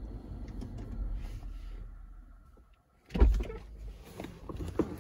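Air suspension of a 2016 Jeep Grand Cherokee lowering, a low hum with faint hiss that dies away as the system stops. About three seconds in, a loud thump and a few knocks as the camera is picked up and moved.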